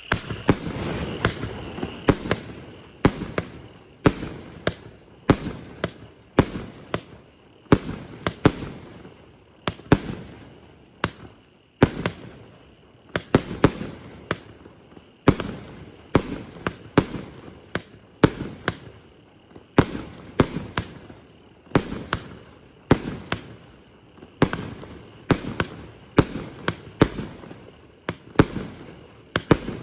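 A 1.2-inch, 100-shot fireworks cake firing in sequence: a sharp bang about twice a second, each followed by a brief decaying rumble, without a break.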